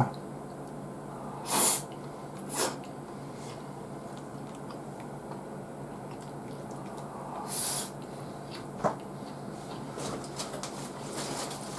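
Eating sounds: a man chewing grilled hokke and rice, with a few short sniffs through the nose and a single sharp click about nine seconds in, over a steady low hum.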